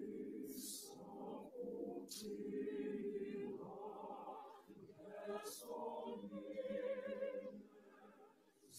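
Mixed-voice school choir singing in parts, holding chords, with sharp 's' sounds from the words standing out. The singing drops away shortly before the end.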